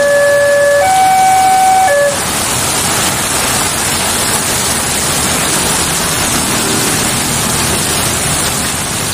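Railway level-crossing warning alarm sounding two alternating tones, switching about once a second, which stops about two seconds in as the barrier arms lift. Heavy rain hisses throughout, with a motorcycle engine faintly passing near the end.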